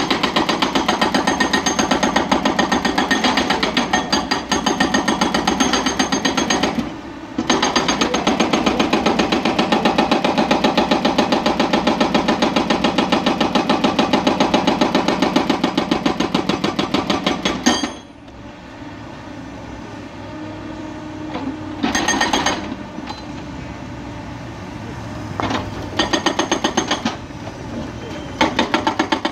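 Hydraulic rock breaker on a Hyundai crawler excavator hammering rock in rapid, loud blows, with a brief pause about seven seconds in. The hammering stops a little past halfway, leaving the excavator's engine running, with a few short bursts of hammering near the end.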